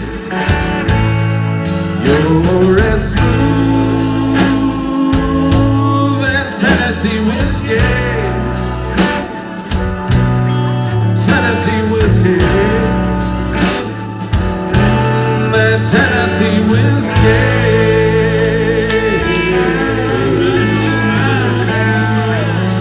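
Band music: the slow closing section of a country-soul ballad, with guitar and sustained, wavering lead lines over a steady bass.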